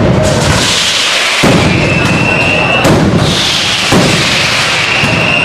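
Daytime fireworks barrage of firecrackers and aerial salutes: continuous loud crackling with sharp bangs about every one to one and a half seconds, and twice a faint slowly rising whistle.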